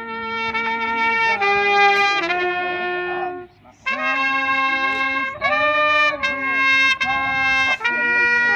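A brass instrument playing a slow tune of long held notes, breaking off briefly about three and a half seconds in.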